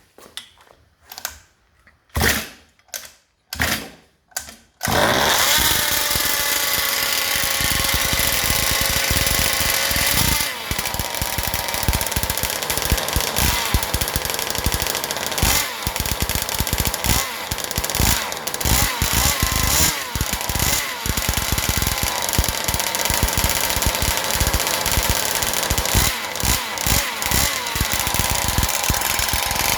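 Rebuilt 57cc two-stroke RC engine with an OBR full-mod head being pull-started: about five short pulls, then it catches about five seconds in and runs loudly, with the pitch rising and falling as the throttle is blipped repeatedly. It still needs a bit of fine tuning.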